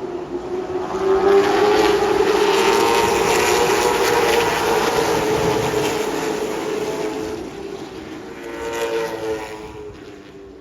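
Late model stock car engines at full throttle as cars race past on the oval. The sound swells within the first second or two, holds loud, then fades, and another car passes about nine seconds in, its pitch falling as it goes by.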